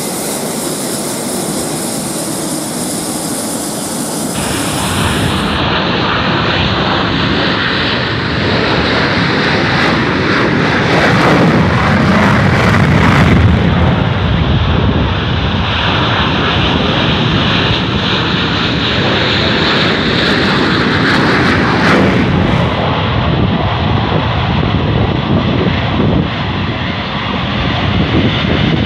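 Military fighter jets' engines running, a loud steady jet noise with no break. It gets louder about four or five seconds in.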